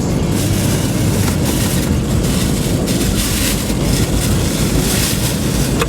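A vehicle driving in heavy rain: steady low road rumble under a loud hiss of rain and spray that swells and fades every second or so.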